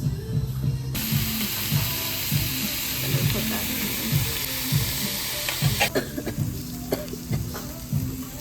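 Meat sizzling on a Korean barbecue grill. The sizzle comes in sharply about a second in and falls away about six seconds in.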